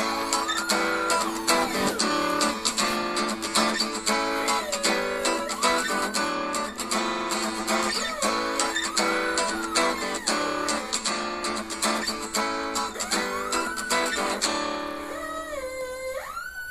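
Samsung Galaxy S6 ringtone playing, a plucked guitar-like melody that stops near the end. Over it come repeated rising-and-falling wails, with a last one just after the music stops, which fit a dog howling along.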